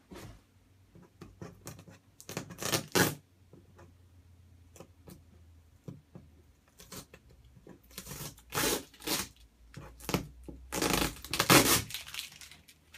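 Packing tape and cardboard of a shipping box being torn open, in three main tearing pulls about a second long each, the last the loudest, with small scrapes and knocks of the cardboard between.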